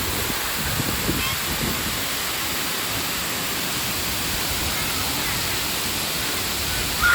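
A waterfall's steady rushing water. Faint distant voices sound over it, and a louder voice comes in right at the end.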